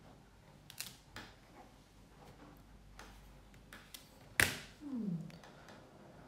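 Scattered small clicks and taps of objects being handled on a work table. About four seconds in comes one sharp knock, the loudest sound, followed by a short falling tone.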